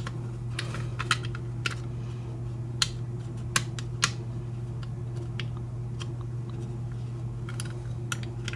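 Small sharp metal clicks and ticks from a picked American Lock padlock core and its retaining clip being worked with tools, scattered irregularly with the loudest around three to four seconds in, over a steady low hum.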